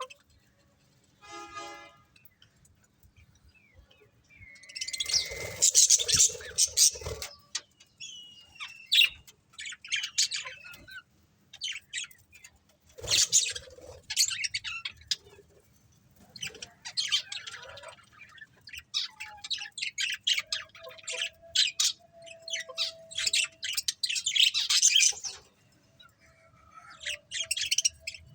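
Pet budgerigars chirping and chattering in quick bursts of high calls with short pauses between them. There is a single harsh, buzzy squawk early on.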